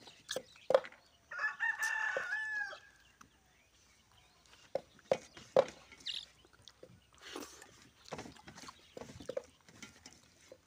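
A rooster crows once, starting about a second in and lasting over a second, ending on a falling note. Short clicks and smacks of eating by hand are scattered around it.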